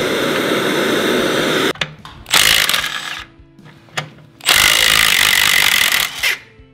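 A cordless impact wrench hammering in three bursts: a long one at the start, a short one about two and a half seconds in, and a longer one of nearly two seconds near the end. It is breaking loose rust-seized, torch-heated nuts on the exhaust header-to-turbo joint.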